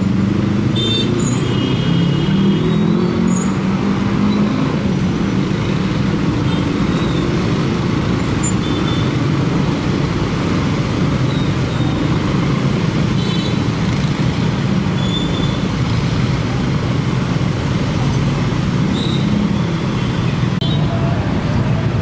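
Dense motorcycle traffic at a railway level crossing: many small engines idling and pulling away, with car and truck engines mixed in, in a steady din of traffic.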